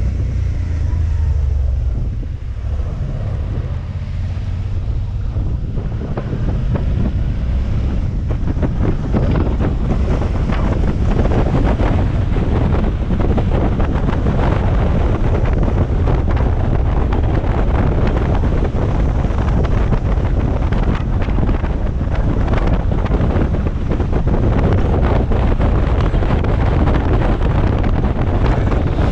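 Wind buffeting a helmet-mounted microphone over a motorcycle's running engine, a steady gusty rush with a low rumble underneath. The rush grows louder about eight seconds in and then holds.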